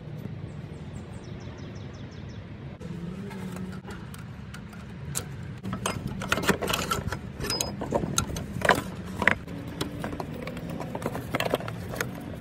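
Scattered clicks, taps and light rattles of hands handling parts in an engine bay: the removed vacuum pump and its brittle vacuum hose being worked free. A steady low hum runs underneath. The clicks get busier about halfway through.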